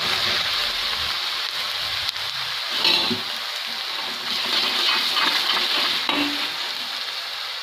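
Grated potato shreds sizzling as they deep-fry in hot oil in a steel kadhai; the sizzle starts the instant they go in. A ladle stirs them, with a few light knocks against the pan.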